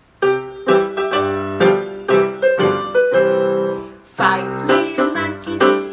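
Electronic keyboard with a piano sound playing a melody of separate notes over low bass notes, starting a fraction of a second in, with a short gap just before the fourth second before it plays on.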